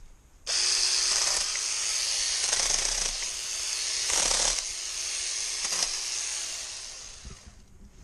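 Hancaner cordless mini chainsaw switching on abruptly and running through a cut, a steady motor whine with a high hiss of chain and chips, for about seven seconds before winding down near the end.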